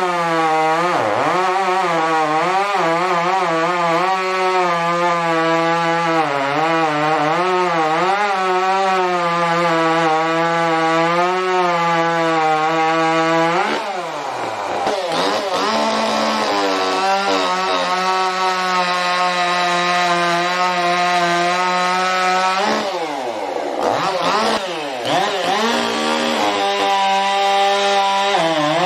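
Ported and modified two-stroke chainsaws at full throttle cutting through wood, the engine pitch sagging and recovering under load. About halfway through, and again about two-thirds through, the engine note drops away and then revs back up, as one cut ends and the next saw starts cutting.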